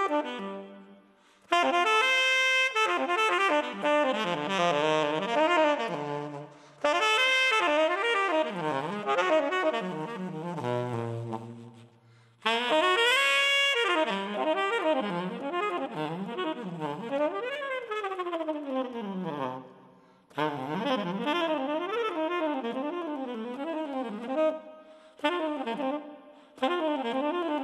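Jazz saxophone playing alone, an unaccompanied solo passage in phrases of several seconds broken by short pauses. The line moves in quick runs up and down, with a long falling slide about two-thirds of the way through.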